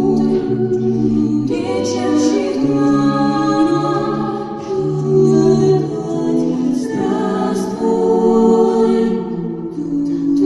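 Vocal ensemble singing a cappella in several-part harmony, moving through long held chords over a low bass line.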